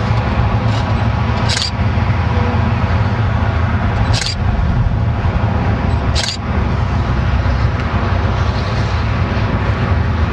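Strong wind buffeting the microphone, a loud, steady low rumble with a rushing hiss above it. Three sharp clicks come through it about one and a half, four and six seconds in.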